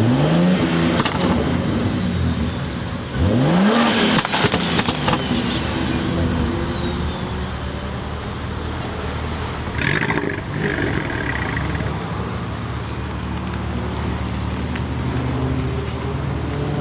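The single-turbo S58 straight-six of a BMW M3 G81 Touring, revving sharply about three seconds in, with a string of crackles and then a thin falling whistle. A short burst of noise comes about ten seconds in; after it the engine runs at fairly steady revs and climbs again near the end.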